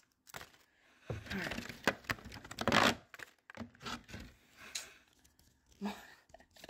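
Cardboard advent-calendar door being torn open and a sticker sheet slid out of its slot, a few bursts of tearing and rustling cardboard and paper, loudest near three seconds in. A few short handling rustles follow.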